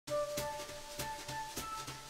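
Instrumental intro music with a steady beat, a sharp hit about every 0.6 seconds, and held melody notes between the hits.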